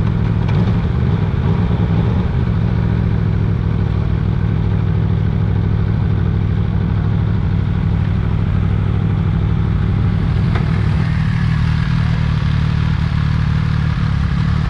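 Motorcycle engine running steadily, with a strong low hum.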